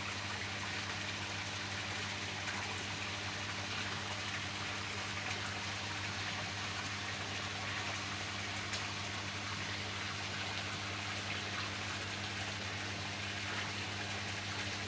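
Steady rushing and gurgling of water churning into a koi pond, with a constant low hum underneath.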